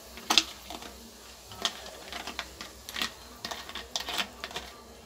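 Soda water freshly poured over ice cubes in a glass, fizzing with irregular crackles and sharp clicks, a few each second. The loudest click comes about half a second in.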